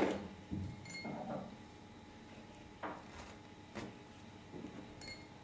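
A sharp clink, then a few light taps and two small glass clinks with a short ring, about a second in and near the end: toothpicks being taken from a small glass bowl.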